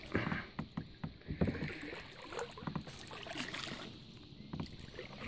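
Plastic kayak being manoeuvred in shallow water among reeds: irregular small knocks, splashes and rustles, busiest in the first second or so, then quieter.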